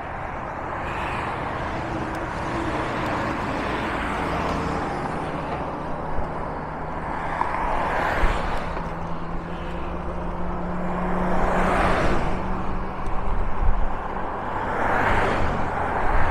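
Road traffic on a highway: a steady rush of noise with three vehicles passing one after another, each swelling and fading, about halfway through, about three-quarters through and near the end.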